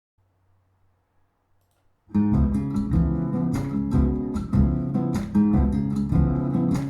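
Strummed guitar music with a strong bass line, played through B&W DM603 S3 floorstanding speakers driven by a Sony TA-F490 amplifier, starting suddenly about two seconds in after a faint low hum.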